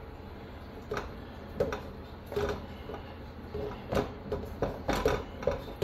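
Irregular light clicks and knocks as biscuit dough is scooped and pinched off by hand in a stainless steel mixing bowl, with hands and dough bumping the bowl. The knocks come sparsely at first and more often in the second half.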